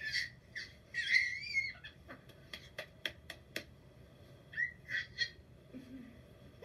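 A baby's high-pitched squeals, three short gliding cries, with a quick run of sharp clicks or taps in the middle.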